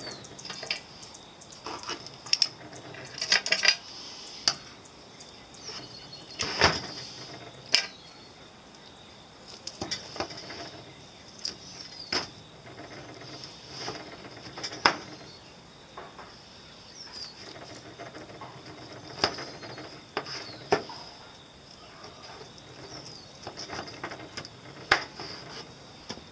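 Stainless steel tongs clicking and tapping against each other and a wooden cutting board as cooked racks of baby back ribs are pulled apart. The sharp clicks come irregularly, about one every second or two.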